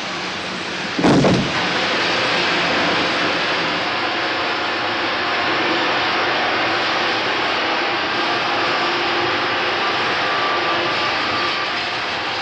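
Métro train running at speed through a tunnel: a loud, steady rushing rumble, with a short louder burst about a second in.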